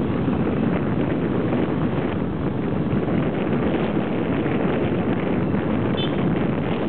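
Wind buffeting the microphone over a moving motorcycle's running engine: a steady, loud rushing noise with no letup.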